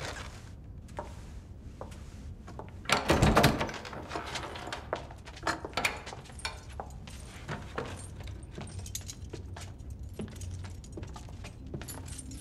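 A heavy door opening with a loud thud about three seconds in, followed by scattered light knocks and rustles in a reverberant stone hall.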